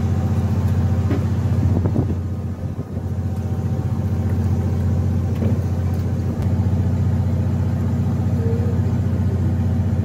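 A fishing boat's engine running steadily, a constant low drone that dips briefly about two and a half seconds in.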